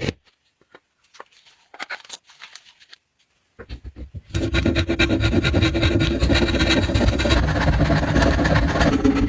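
Scattered light taps and scrapes, then about four seconds in an abrasive power tool starts working the knife and runs on steadily and loudly.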